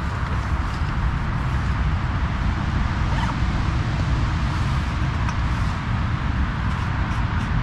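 Continuous road traffic noise: cars passing steadily with a deep low rumble. A few faint clicks near the end.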